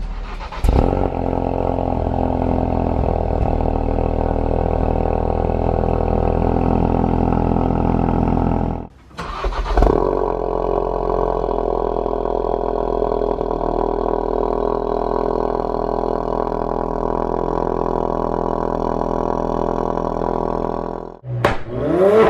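Ford Focus RS Mk3's 2.3-litre turbocharged four-cylinder idling steadily through a Mountune V3 cat-back exhaust, measuring about 73 dB on a sound meter behind the tailpipes. The sound drops out briefly about nine seconds in. Near the end it cuts to the stock exhaust, its pitch rising and falling as the engine is revved.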